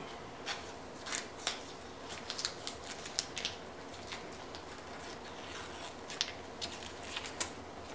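Faint, scattered crackling and ticking of blue painter's tape being peeled up off a wood surface, with a paper towel rustling as excess glue is wiped away.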